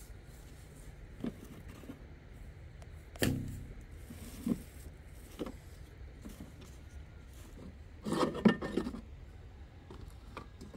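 Scattered knocks and clatters over a low steady rumble. The loudest is a sharp knock about three seconds in, and near the end comes a burst of clattering as metal pump gear is handled in a plastic bucket.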